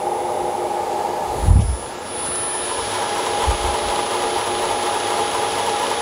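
Washing machine's inverter-drive electric motor, run from a frequency converter, spinning fast with a steady whine and a rushing hiss that grows louder about two seconds in. A low thump about one and a half seconds in.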